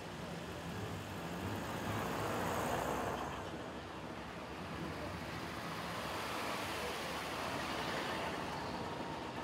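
Classic cars driving slowly past one after another, their engines running at low speed; one passes close near the end.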